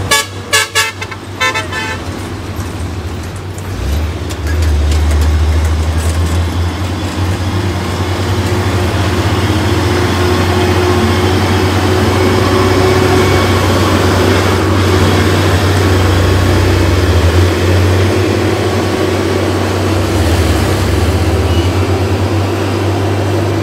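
A vehicle horn tooting in quick pulses in the first second or so. Then a heavy truck's diesel engine runs loud and steady under load as it climbs a steep grade.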